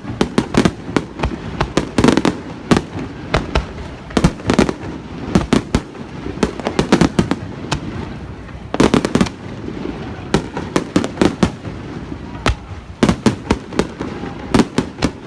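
Aerial fireworks display: a dense, irregular barrage of shell bursts, several bangs a second with no let-up.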